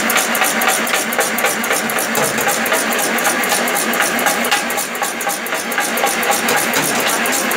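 Automatic incense stick (agarbatti) making machine running, its stick-feed mechanism clattering in a fast, even rhythm of several clacks a second.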